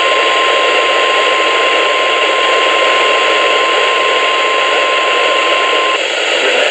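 NOAA Weather Radio 1050 Hz warning alarm tone: one steady, unbroken beep over loud radio static, cutting off about six seconds in. It is the alert signal sent ahead of a spoken warning message.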